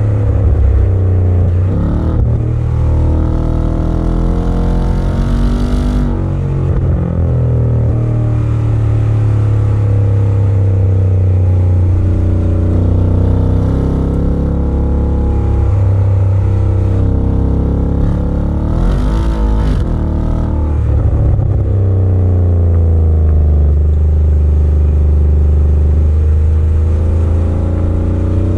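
A 2020 Ford Mustang's 5.0-litre V8, heard from inside the cabin while driving, accelerating with its pitch rising and falling several times as the revs climb and drop.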